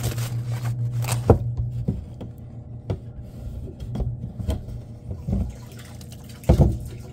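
Water trickling and splashing from the end of a black polyethylene return line into the open top of a plastic rainwater tote: pumped water coming back through the circulation loop, the sign that the system is working. Rustling of the tote's fabric cover and a few sharp knocks as the pipe is handled, the loudest about a second in and near the end.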